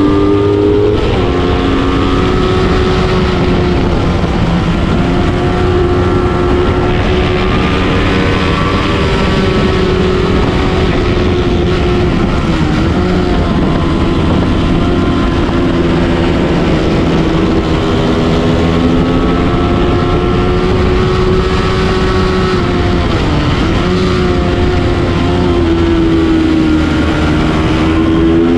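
Onboard sound of a Kawasaki Ninja 250 race bike's parallel-twin engine held at high revs at racing speed, its pitch dipping and climbing again briefly a few times, with wind rushing over the microphone.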